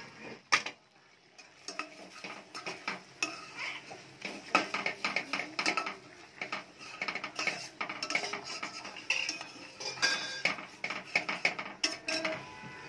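Metal spoon clinking and scraping against a metal cooking pot in repeated stirring strokes, with a sharp clank about half a second in.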